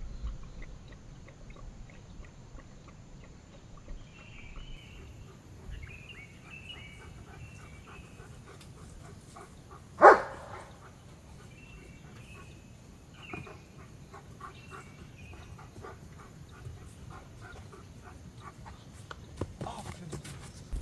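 A dog barks once, sharply and loudly, about halfway through, over faint birdsong.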